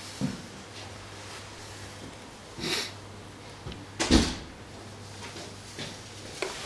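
A few knocks and clunks of things being handled, the loudest a sharp thump about four seconds in, with a short hiss just before it, over a low steady hum.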